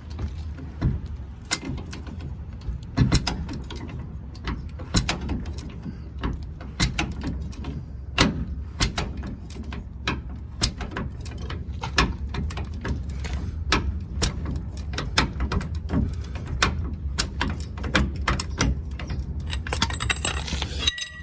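Antique Walker Badger 117 car jack lowering a truck. Its metal mechanism gives sharp, irregular clicks and clacks, about one or two a second, over a low steady hum.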